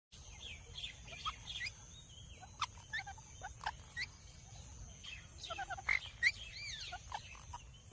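Parrot making short, irregular chirps and squeaky whistles, some sliding up or down in pitch, with a few sharp clicks among them.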